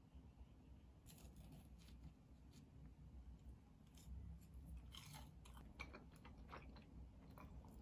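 Faint close-up chewing of food, with scattered soft crunches and mouth clicks, thickest about four to six seconds in.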